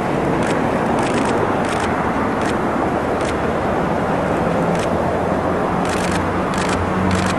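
Steady vehicle rumble with a low hum, overlaid by camera shutters clicking in short bursts, about a second in and again several times near the end.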